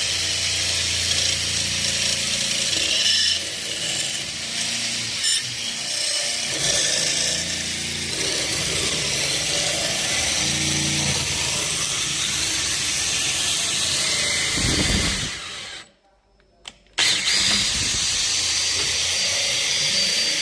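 Power tool running steadily with a hissing cutting noise as wood is turned. The sound drops out for about a second some three-quarters of the way through, then resumes.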